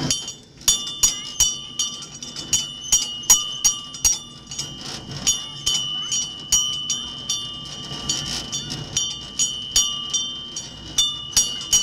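Locomotive bell on a miniature park train rung repeatedly by its pull cord, about three strikes a second, each strike leaving a clear ringing tone that carries into the next. A faint low rumble of the train running lies underneath.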